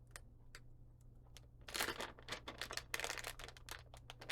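Plastic snack bag crinkling as it is handled and opened, in two bursts of crackle about two and three seconds in, with light clicks and rustles between.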